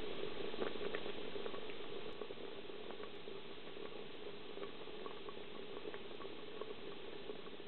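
Pot of pinto beans simmering in a covered clay pot: a steady bubbling with many small pops. It drops a little in level about two seconds in.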